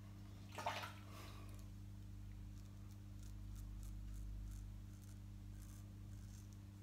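A Feather SS AC kamisori-style razor with a Feather Professional blade makes a series of short, faint scraping strokes through lathered stubble, over a steady low room hum. About half a second in there is one brief, louder rustling noise.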